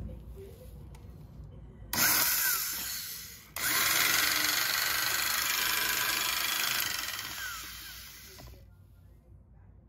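Vintage Power-Kraft electric circular saw's motor switched on for about a second and a half, cut off, then run again for about three seconds before spinning down. It runs with a loud, hissy whine. The owner says the new carbon brushes still spark, which he puts down to them not yet being worn to shape.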